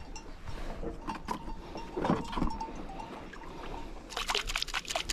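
Quiet handling sounds of a fishing hook being baited in a wooden boat, with scattered small clicks. Near the end comes a run of quick scraping clicks as bait paste is worked in a jar with a stick.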